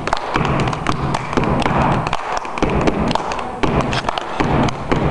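Stepping: feet stomping and hands clapping, a quick run of sharp hits several times a second.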